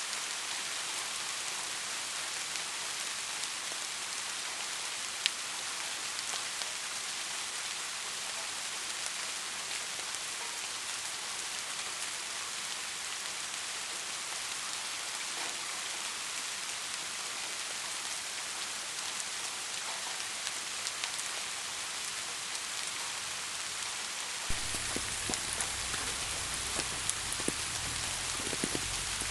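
Steady rain falling, an even hiss broken by scattered sharper drop ticks. Near the end the sound changes: a deeper low layer comes in and close drop ticks become more frequent.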